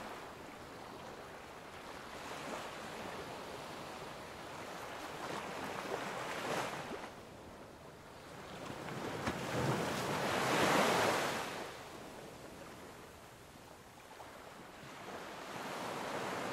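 Sea waves washing in, the surf swelling three times, loudest about ten seconds in.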